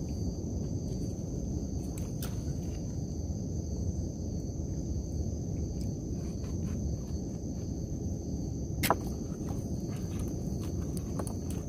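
Steady high chirring of night insects over a low rumbling background, with scattered small clicks and knocks from a trammel net being hauled into a wooden boat; one sharper knock about nine seconds in.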